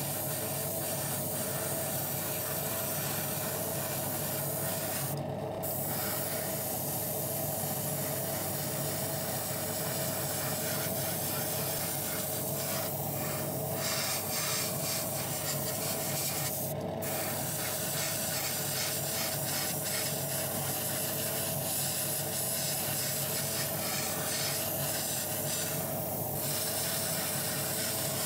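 Airbrush spraying paint onto small diecast model car parts, a steady hiss over a steady machine hum. The hiss stops briefly about five seconds in and again near seventeen seconds, where the trigger is let off.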